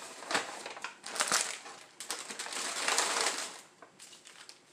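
Paper bag rustling and crinkling as hands rummage inside it and pull items out: short rustles near the start, a longer one through the middle, then quieter near the end.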